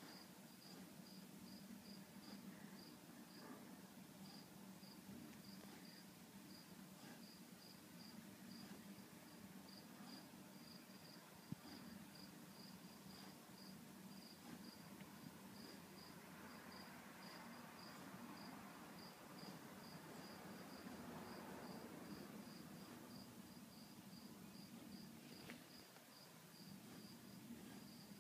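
Crickets chirping faintly in a steady run of evenly spaced high chirps, over a low murmur, with one sharp click about eleven and a half seconds in.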